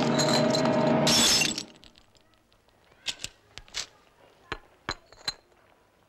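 Glass smashing about a second in, over music. A few seconds of scattered sharp clinks of glass follow.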